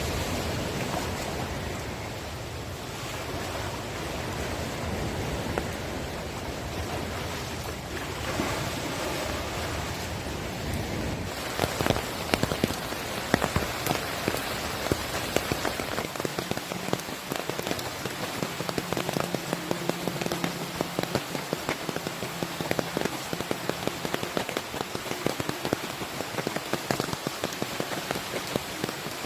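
Heavy rain falling, a steady hiss with many loud drops pattering on a near surface from about a third of the way in.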